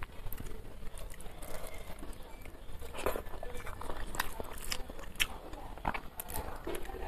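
Fingers mashing and mixing rice with egg curry on a plate, with chewing: soft squelches and scattered sharp clicks.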